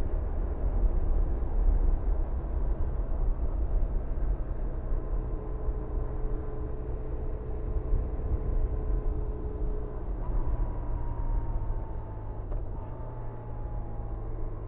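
BMW R1100RT's flat-twin boxer engine running at cruising speed under heavy low wind and road rumble. In the last few seconds the engine note drops slightly and gets quieter as the throttle eases.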